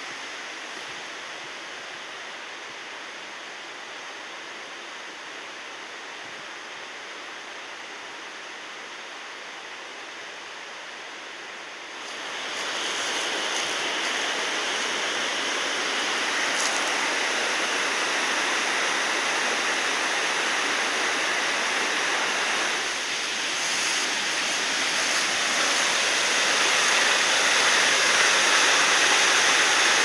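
Steady rushing roar of Chinda Falls, a large waterfall. It is duller and quieter at first, becomes louder and brighter about twelve seconds in, and swells again near the end.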